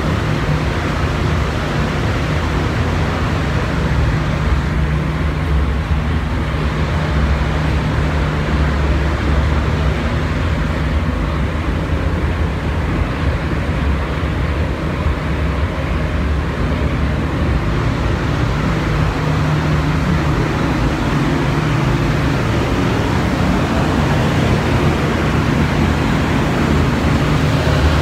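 Paint booth ventilation fans running: a steady, even rush of air with a low hum underneath.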